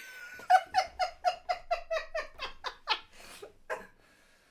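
A rapid run of short, pitched vocal bursts, about four or five a second, trailing off toward the end.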